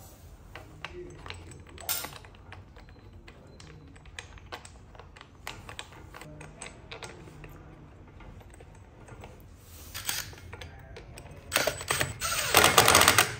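Small bolts, washers and a metal clamp clicking and tapping as they are fitted by hand onto a plastic brush-cutter guard, then a cordless driver running in short bursts near the end as it tightens the clamp bolts. The driver is the loudest sound.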